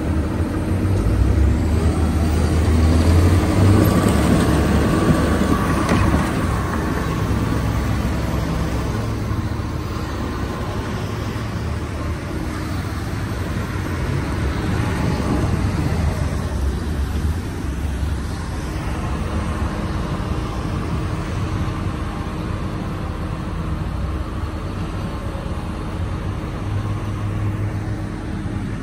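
Diesel engine of a Caterpillar motor grader running as it drives past close by. It is loudest in the first few seconds, then a little quieter and steady as the grader moves off.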